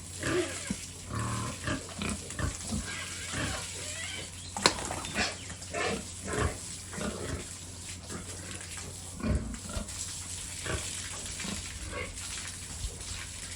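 Big pigs grunting repeatedly in short, irregular grunts, with one sharp knock about four and a half seconds in.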